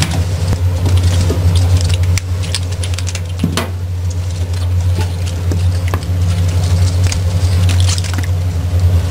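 A steady low hum with scattered light knocks, taps and wet slaps over it, from a knife and hands working a raw octopus on a plastic cutting board.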